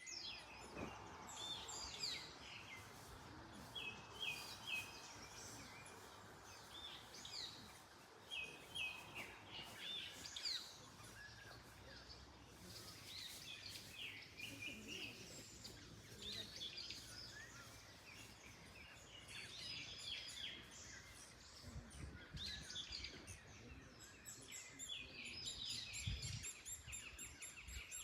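Several birds chirping and singing in short, overlapping phrases, over a soft rush of wind through tree leaves that is strongest in the first ten seconds.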